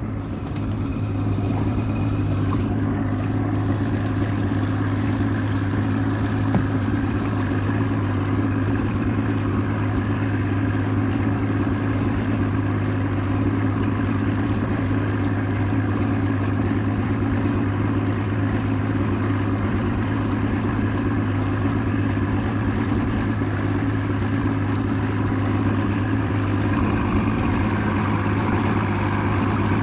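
A 60-horsepower VRO two-stroke outboard motor running steadily at low speed: a constant, even drone with no change in pitch.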